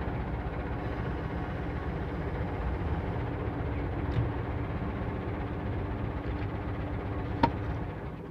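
JCB 3CX backhoe loader's diesel engine running steadily at low revs, heard from the cab, with one sharp click about seven and a half seconds in.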